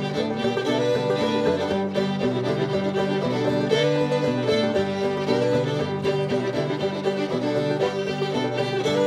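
Old-time string band playing an instrumental break: two fiddles carry the melody over banjo and acoustic guitar, with no singing.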